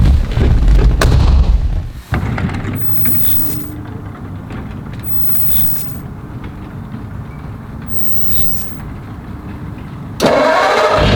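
1936 Ford flathead V8 exhaust rumbling loudly, cutting about two seconds in to a quieter, steady low idle. It comes back loud with a fuller, rising sound near the end.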